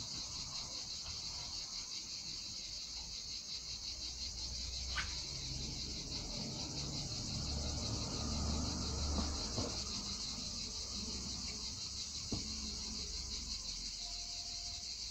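Steady high-pitched chirring of insects in the background, with a low hum and a few faint clicks from handling a stainless-steel wire leader and its crimp sleeves.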